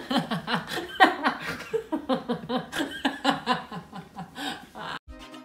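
A man and a woman laughing hard together in quick, repeated bursts of voice. The laughter cuts off suddenly near the end as music starts.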